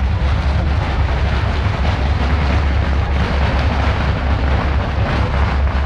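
A long string of firecrackers crackling continuously as one dense rattle of small bangs, stopping abruptly near the end, over wind buffeting the microphone.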